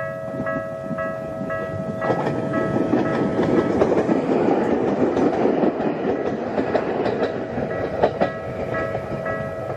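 Level-crossing warning bell ringing at about two strikes a second while a Bessho Line electric train passes over the crossing, its running noise swelling for several seconds and wheels clacking over rail joints near the end of the pass.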